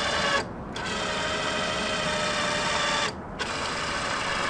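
Power-adjust motor of a YITAMOTOR tow mirror whirring in a steady whine as it moves the mirror glass, in three runs with short stops about half a second in and about three seconds in. The motor works fine.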